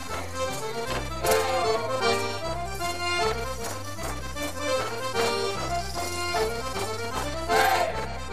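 Traditional folk dance tune played on accordion, with a bouncing bass that alternates between notes under a lively melody.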